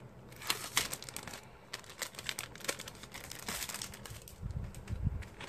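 Packaging of a sticker mail order being opened by hand: irregular crinkling and crackling, with a couple of dull low thumps near the end.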